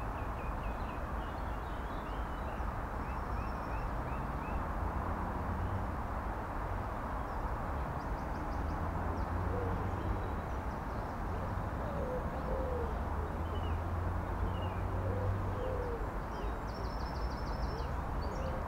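Steady outdoor rushing background with birdsong: series of short high chirps near the start and near the end, and a few groups of low cooing calls in the middle.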